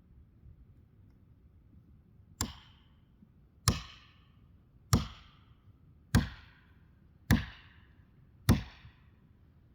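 An axe chopping into a tree: six evenly spaced blows, about one every 1.2 seconds, starting a couple of seconds in. Each blow is a sharp crack with a short ringing tail.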